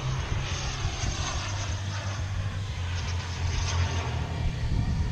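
Radio-controlled Elite Aerosports Havoc aerobatic airplane in flight, its motor and propeller making a steady drone with a rush that swells and then eases off toward the end.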